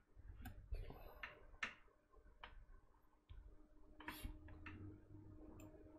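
Near silence: a faint steady hum with a scattered few faint clicks and ticks.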